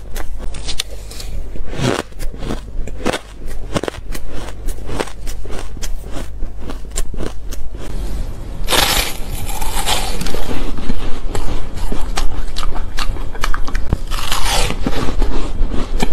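Close-miked crunching and crackling of ice being chewed, with many sharp crisp clicks. After a cut, there are two loud hard bites into frozen ice pieces, each followed by crunching.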